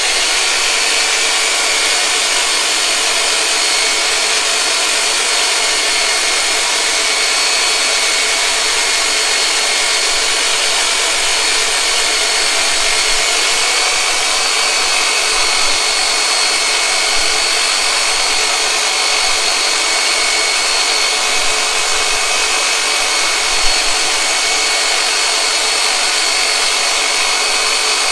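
Turbonator motorized massage tool running steadily on the back muscles: a loud, even motor hum with a thin high whine over it.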